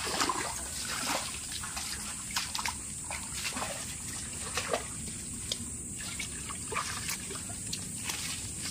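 Shallow muddy stream water trickling and dribbling, with many small splashes and drips as hands and a wet net work in the water. A steady high hiss runs underneath.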